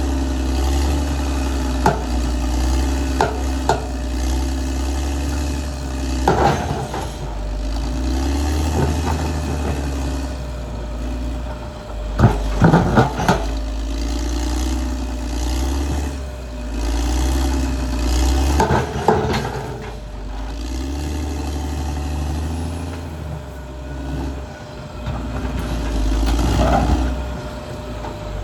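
Caterpillar D6R XL bulldozer's diesel engine running under changing load, its note rising and falling every few seconds, with sharp metallic clanks and knocks breaking in several times.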